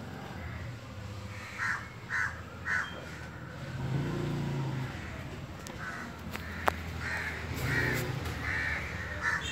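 A bird calling: three short calls about half a second apart, then a run of similar calls near the end, over a steady low hum.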